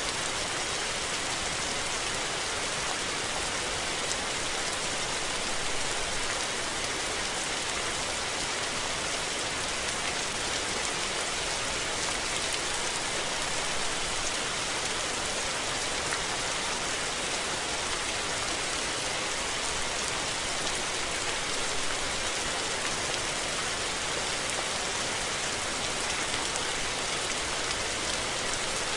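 Steady rain falling: an even, dense hiss of raindrops that holds at the same level throughout.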